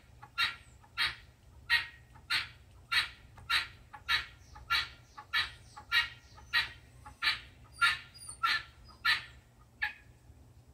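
Guinea hens (domestic helmeted guineafowl) calling in a steady, nonstop rhythm, a short squeaky call about every two-thirds of a second, like a squeaky schoolyard swing; the calling stops about ten seconds in.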